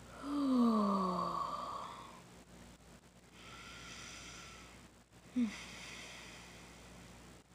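A person's muffled groan of pain with her mouth full of frozen mochi ice cream, one long sound falling in pitch, then a short whimper about five seconds in; the cold of the whole ice-cream ball hurts.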